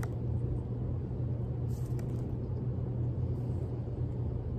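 A steady low hum, with a few faint ticks of paper trading cards being handled and swapped about two seconds in and again later.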